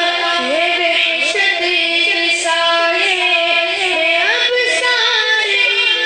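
Urdu Islamic nasheed sung by a solo voice, the melody rising and falling in ornamented turns over a steady held note beneath.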